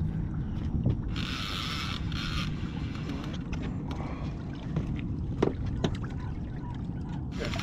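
Conventional fishing reel straining against a hooked striped bass, its drag buzzing out line about a second in and again near the end, the last spell a rapid fine clicking, over a steady low rumble.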